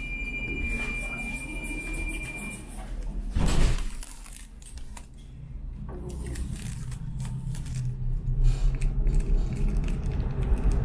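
Tram standing, then pulling away: a steady high tone for the first two and a half seconds, a short loud burst of noise about three and a half seconds in, then the low rumble of wheels and motors growing louder from about six seconds on as the tram gathers speed.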